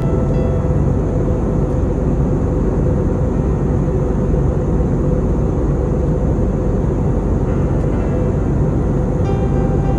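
Steady cabin noise of a jet airliner in flight after take-off: engines and rushing air make a constant, even low din.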